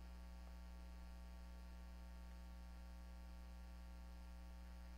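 Near silence over a steady low electrical hum, like mains hum picked up by the sound system.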